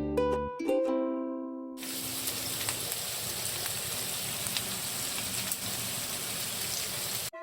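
Food sizzling in a frying pan: a steady hiss with small scattered crackles that cuts off abruptly near the end. Plucked-string background music plays for the first couple of seconds before it.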